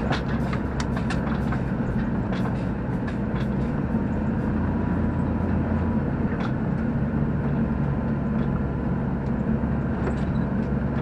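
Steady drone of a vehicle driving along, engine and road noise, with scattered small clicks and rattles.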